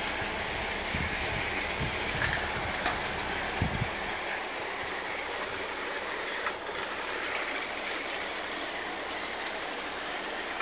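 A motorised Paw Patrol toy train running steadily around its plastic circular track. A few soft knocks come in the first few seconds.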